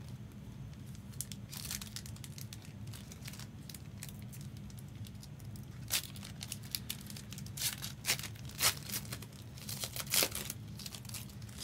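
Plastic wrapping being handled, crinkling in short scattered crackles that come thicker and louder in the second half, over a low steady hum.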